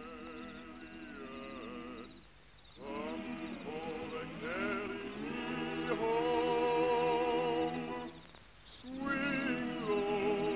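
A group of voices singing a slow, wordless mourning song a cappella, with a short pause about two seconds in and another about eight seconds in; it grows louder partway through.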